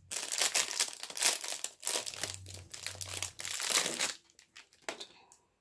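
Crinkly packaging being handled and unwrapped by hand: a dense, irregular crinkling and crackling that stops about four seconds in, followed by a few faint ticks.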